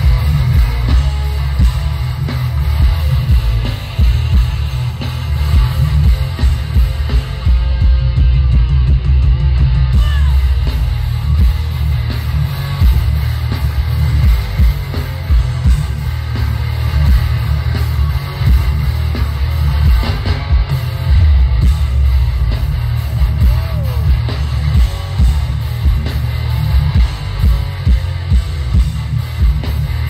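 A hardcore punk band playing live, with distorted electric guitars, bass and drums, heard from within the crowd; the low end is loud and heavy.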